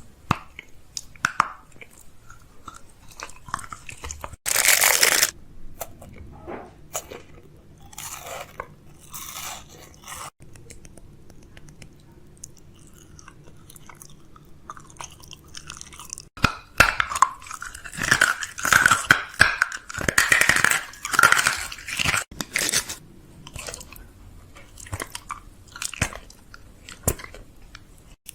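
Chewing and biting into something crunchy: irregular crisp crunches, with one loud crunch about five seconds in and a dense run of them in the last third.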